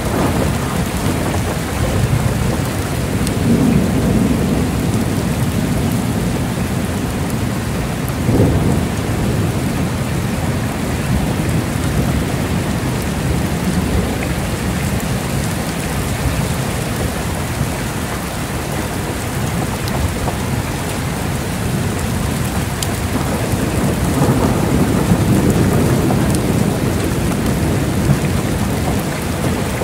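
Heavy rain pouring steadily, with low rolling thunder rumbling under it and swelling about three seconds in and again near the end.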